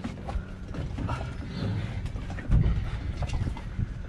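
Creaks, clicks and knocks from a fiberglass boat hardtop shifting against its wooden support posts as it is held up and moved by hand, with one heavier thump about two and a half seconds in.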